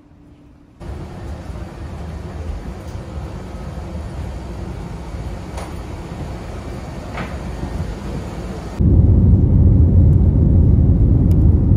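Airliner cabin noise: a steady low jet-engine rumble that comes in suddenly about nine seconds in, the loudest sound here. Before it comes a quieter steady rushing noise with a couple of faint clicks, after a brief hush of room tone.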